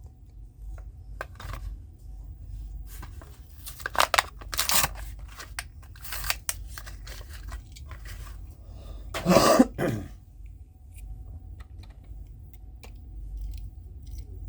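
A carded die-cast car's plastic blister and cardboard backing being cut and torn open: scattered crackles, snips and tearing noises, with a louder rasping burst about nine seconds in.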